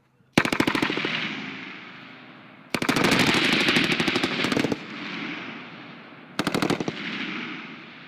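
Automatic machine-gun fire in three bursts: a short burst, a long burst of about two seconds, then another short one. Each burst is a rapid string of shots and trails off in a long rolling echo.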